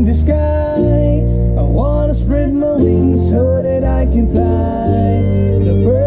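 A reggae band playing live: men singing the melody over electric guitars, a bass guitar holding long deep notes that change every second or so, and ukulele.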